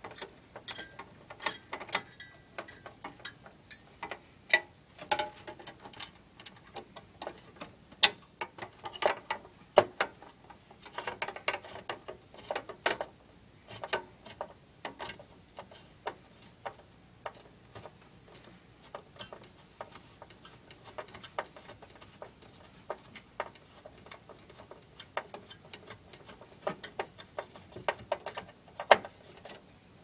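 Irregular clicks and small metallic ticks of a screwdriver turning the spring-loaded screws of a CPU heatsink inside a desktop PC case, with a few louder sharp clicks.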